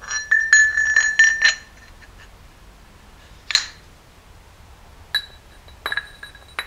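Steel transfer-case gears clinking and ringing against the output shaft as they are slid back onto it: a quick run of clinks in the first second and a half, then a few single clinks.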